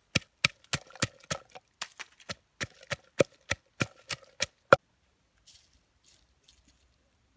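Wooden pestle pounding garlic cloves and red chillies in a wooden mortar: sharp, even knocks, about three a second, with the last and loudest strike about five seconds in. A faint patter of white seasoning granules poured into the mortar follows.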